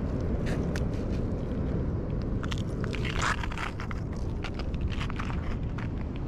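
Steady low wind rumble on the microphone, with scattered sharp clicks and a scraping rustle about three seconds in from hands handling a caught fish and lure on the rock.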